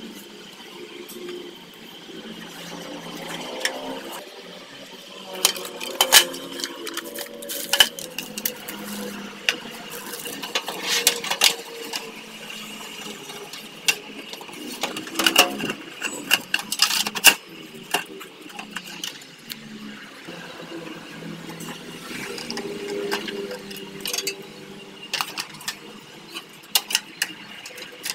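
Irregular metallic clicks and clinks of PC parts and a metal computer case being handled as a motherboard and its rear I/O plate are fitted in, over a faint steady high whine.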